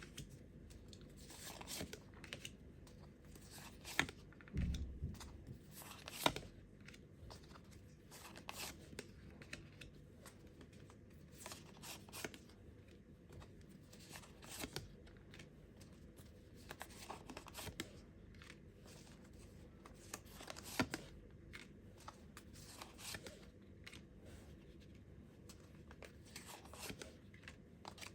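Tarot cards being shuffled by hand: a run of soft, irregular flicks and taps, with one dull thump about four and a half seconds in.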